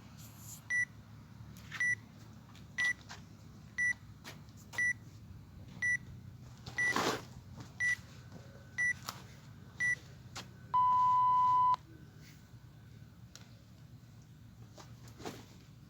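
Workout interval timer counting down: ten short high beeps about once a second, then one longer, lower beep lasting about a second that signals the start. A brief rustle comes partway through the countdown.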